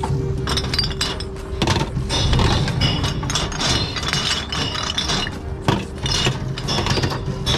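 Glass bottles clinking and breaking inside a container-deposit reverse vending machine as they are fed through, a rapid irregular clatter of glass.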